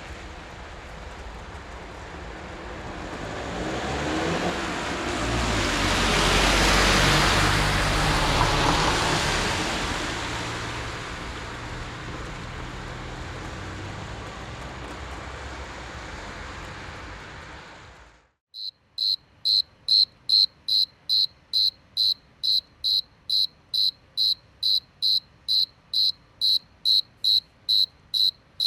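A vehicle passes by, its noise swelling over several seconds and slowly fading. After an abrupt cut, a cricket chirps steadily and evenly, about two and a half high chirps a second.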